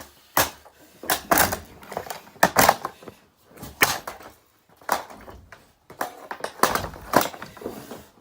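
Irregular knocks, clicks and cracks of a Dirt Devil race car vacuum's plastic housing and parts being forced and broken apart, about a dozen sharp strikes spread across the stretch.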